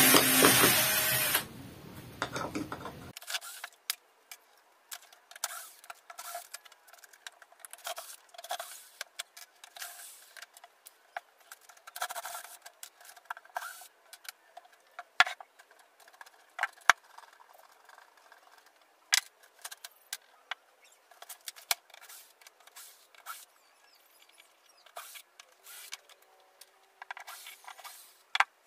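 Corded electric drill whirring for about a second and a half as screws are driven out of a wooden machine base. After that, scattered light clicks and knocks of screws and wooden parts being handled.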